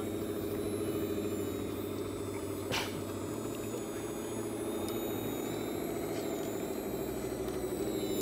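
Electric motors and geared drivetrains of radio-controlled scale crawler trucks whining steadily as they crawl at low speed, the whine growing a little louder near the end. A single sharp click about three seconds in.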